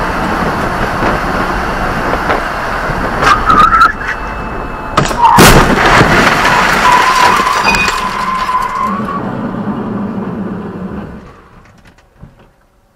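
Cab noise of a moving Ford pickup, then about five seconds in a loud crash impact as it hits another vehicle and the airbags fire. A steady high squeal follows for a few seconds as the truck comes to rest, and the noise fades out.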